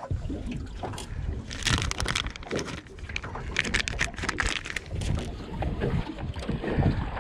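Rustling and clicking as fishing gear is handled in a boat, including the crinkle of a plastic soft-plastic bait packet, over a steady rumble of wind on the microphone.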